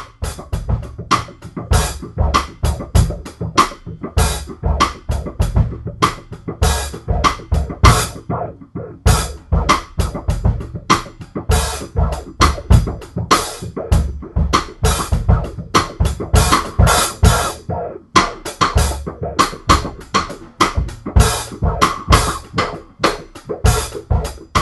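Acoustic drum kit playing a steady beat of kick, snare, hi-hat and cymbal, processed through Moog moogerfooger analog effects (filter, delay, phaser, ring modulation).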